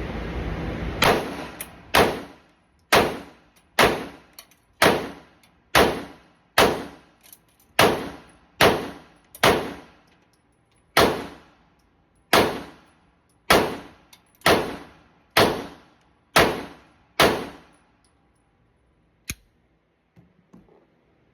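Glock pistol firing 17 shots in slow, even succession, about one a second, each crack trailing off in a short ring. Wind noise on the microphone is heard at the start, and a single faint click follows a couple of seconds after the last shot.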